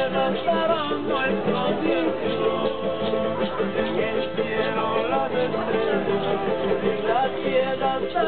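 Latin American folk music played live by a street band on acoustic guitars, a wavering melody line over steady strumming.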